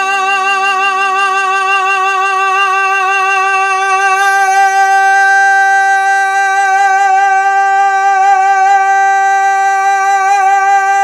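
Music: one long held note with a slight vibrato, steady in pitch and loudness, with no other notes or strumming underneath.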